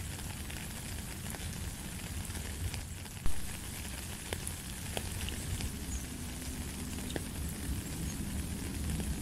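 Rain falling into a puddle on a wet gravel path: a steady hiss of rain with scattered single drops splashing. One sharp knock about three seconds in.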